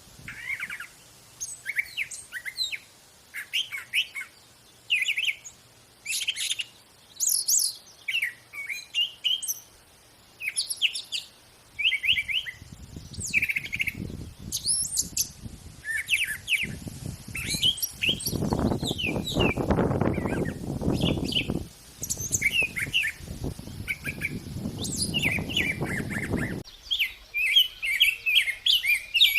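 Wild songbirds chirping and trilling in quick short phrases. Partway through, a low rushing noise rises under the birdsong, is loudest toward the middle, and cuts off abruptly near the end.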